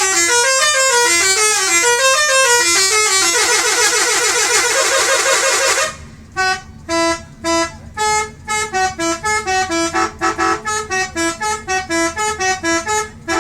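Telolet multi-tone bus horn playing a tune: about six seconds of continuous warbling, up-and-down melody, then a fast run of short, separate staccato toots.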